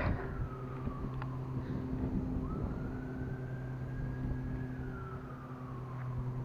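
A siren wailing, its pitch sliding slowly down, up, holding, and down again, over a steady low hum.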